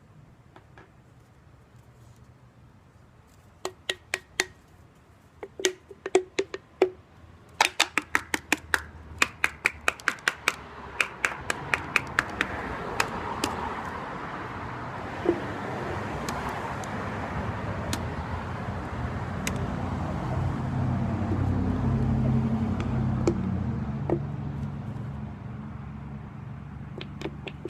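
A glue bottle and container being handled: a run of sharp clicks and taps that comes quicker for a few seconds, followed by a steady rustling noise that swells and then eases off.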